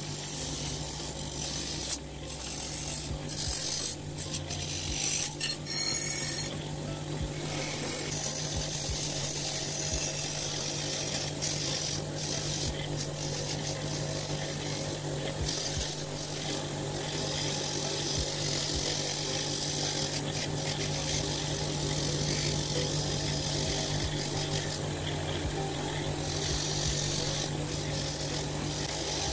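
Electric motor spinning a wire wheel brush with a steady hum, its bristles scratching rust off small steel knife parts pressed against it. There are a few sharp knocks in the first several seconds.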